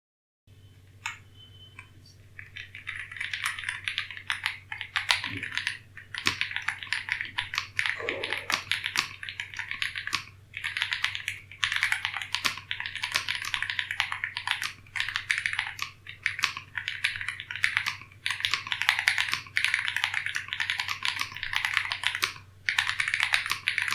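Typing on an Ajazz AK980 mechanical keyboard: a few single key clicks, then fast runs of keystrokes from about two seconds in, broken by short pauses.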